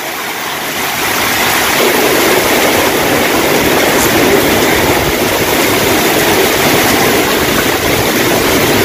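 Heavy tropical downpour driven by strong wind: a loud, steady rushing noise that builds over the first couple of seconds, with a low rumble underneath.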